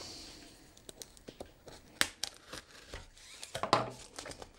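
Fingers picking and scraping at a small cardboard box sealed tight with tape: scattered clicks and scratches of cardboard and tape, with a sharper click about two seconds in and a quick cluster near the end.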